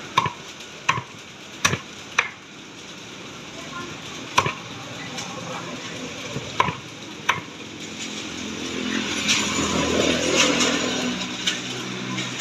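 Cleaver chopping roast duck on a thick wooden chopping block: about seven sharp, irregular chops in the first seven seconds. About eight seconds in, a louder rushing noise swells and fades.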